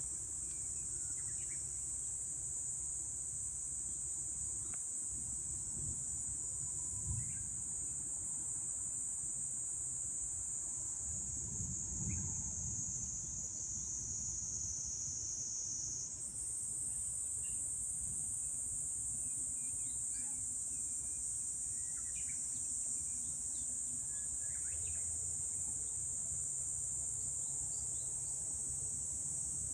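Steady high-pitched insect chorus of crickets or similar singing insects, sagging slightly in pitch about a third of the way in and jumping back up about halfway through. A low rumble lies underneath.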